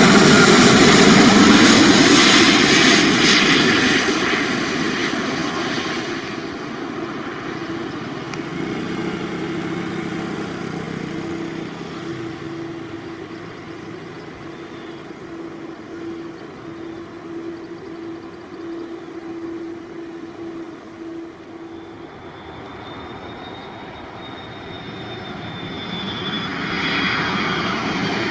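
Jet airliner on landing approach passing low overhead: the Airbus A350-1000's Rolls-Royce Trent XWB engines, loud at first and fading away over about six seconds into a quieter distant rumble. Near the end the engine whine of a second approaching airliner, an Airbus A330-200, rises as it nears.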